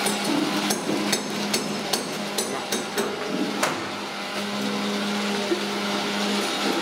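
Hands mixing raw chicken pieces with dry flour in a large aluminium pan, with a run of sharp clicks and knocks in the first few seconds, over a steady hum.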